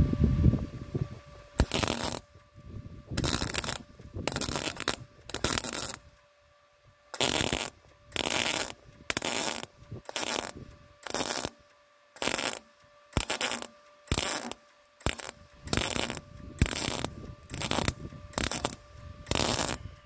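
MIG welder stitch-welding thin car body steel: a run of short bursts of arc crackle, each under a second, with a longer pause about six seconds in, as a strip of steel is welded into a gap in a rusted door pillar. A faint steady hum sits beneath.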